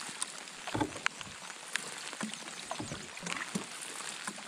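Canoe paddling: paddles dipping and water swishing along the hull, with a few low swells and scattered light ticks.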